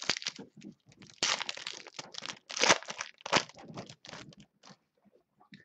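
Trading card pack wrapper being torn open and crinkled, with irregular crackling rustles that are loudest a little over a second in and again around the middle, then trail off.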